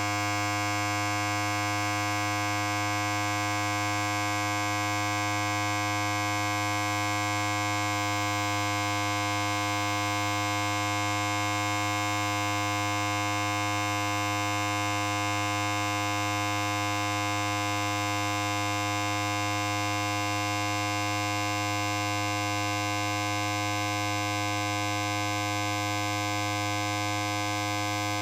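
Electric hair clipper running, a steady unbroken buzz.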